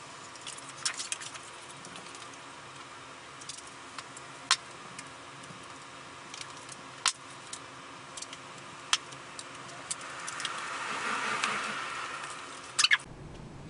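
Hands working foam board and tape: scattered light clicks and taps, then tape drawn off its roll with a swelling tearing sound about ten seconds in, and two sharp clicks near the end.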